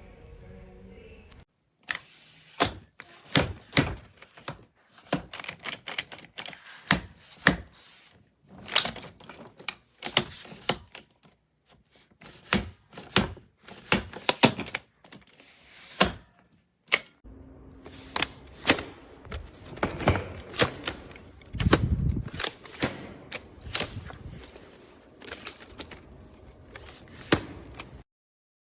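Hardside carry-on suitcase being handled: a long run of irregular clicks and knocks from its plastic shell and fittings.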